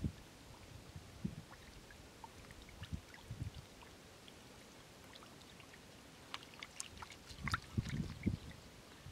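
Large fish thrashing in shallow muddy water: irregular splashes and wet slaps, busiest about seven to eight and a half seconds in.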